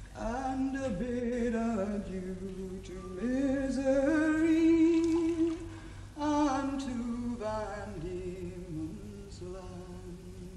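A woman singing a slow traditional Irish folk ballad unaccompanied, with long-held notes, ending on a drawn-out final phrase. A faint low hum runs underneath.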